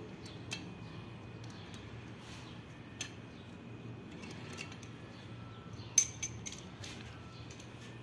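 Sharp metallic clinks of loose steel engine parts, the rocker arms and bolts being picked out of an open cylinder head and held in a bunch. A few scattered clicks, the loudest about six seconds in followed by two lighter ones.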